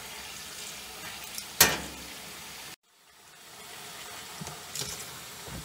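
Tap water running steadily from a faucet into a utility tub, with a sharp knock about one and a half seconds in. The sound drops out abruptly a little before halfway and fades back in.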